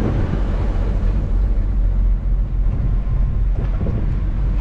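Steady road noise inside a moving car: the engine and tyres rumbling low on a rough desert dirt track.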